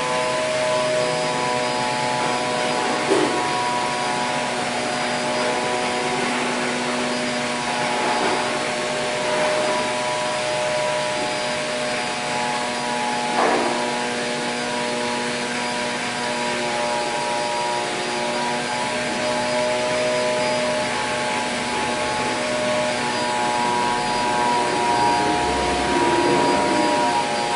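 Steady whir and hum of running workshop machinery, with several steady tones over an even hiss. Two brief knocks stand out, about three and thirteen seconds in.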